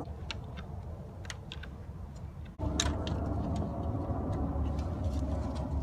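Scattered light clicks and taps from hands working a new coolant hose into place in a car's engine bay, over a steady low rumble. The rumble drops out and comes back louder about two and a half seconds in.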